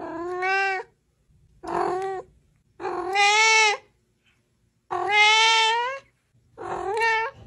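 A cat meowing five times in a row, each meow a drawn-out call of about a second that bends in pitch, with short silences between.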